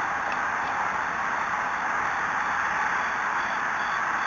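Steady hiss of outdoor ballfield ambience on the camera microphone, even throughout with no distinct events.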